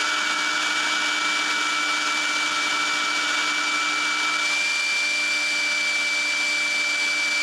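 DeWalt DCBL720P1 20-volt brushless handheld leaf blower running steadily, a loud rush of air with a steady high whine, blowing straight into a handheld anemometer's vane at the nozzle.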